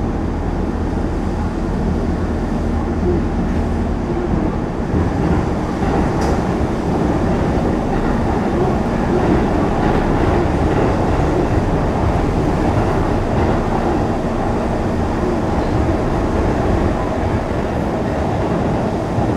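Hanshin Line express train running through a tunnel, heard from inside the passenger car: a steady rumble of the moving train that grows slightly fuller about five seconds in.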